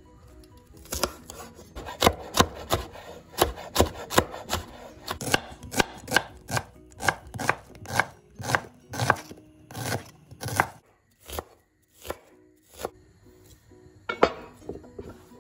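Chef's knife chopping on a wooden cutting board, cutting green chillies and then a red onion: a steady run of sharp knocks, two to three a second, that thins to a few scattered strikes near the end.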